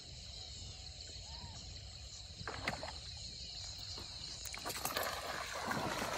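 A snakehead (murrel) striking a topwater frog lure: water splashing that builds over the last second or two, over steady insect chirping.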